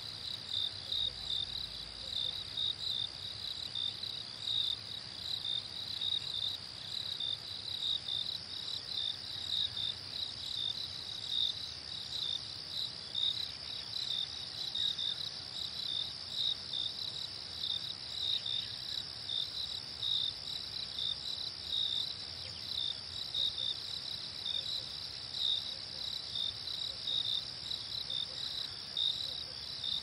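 Crickets chirping in a chorus: a steady high trill with a regular, unbroken string of chirps.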